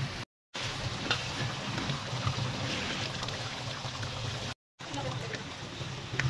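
Thick pork caldereta sauce simmering in a pan, bubbles popping as small ticks over a steady low hum. The sound cuts out for a moment twice.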